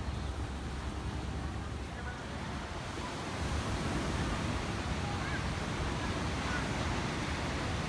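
Ocean surf washing onto a beach: a steady rushing noise with a low rumble, swelling a little about three seconds in.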